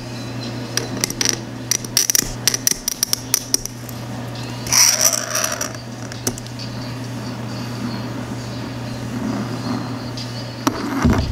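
Hobby knife blade scraping and nicking the edge of a plastic model-kit part: a run of quick sharp clicks through the first few seconds, then a longer scrape about five seconds in, over a steady low hum.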